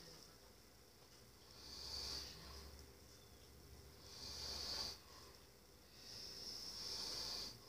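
Faint, slow breathing of a sleeping person, three hissy breaths about two and a half seconds apart, close to snoring.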